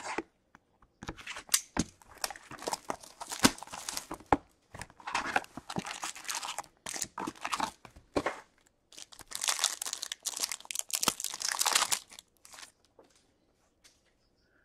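Foil packs of 2020-21 Upper Deck SPx hockey cards being crinkled and torn open by hand, in repeated bursts of crinkling and tearing with sharp crackles. The sound dies down about two seconds before the end.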